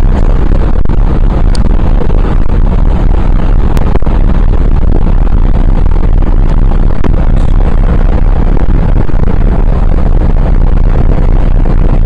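Loud, steady rushing noise aboard a ferry, heaviest in the low end: wind buffeting the microphone over the ship's engine rumble.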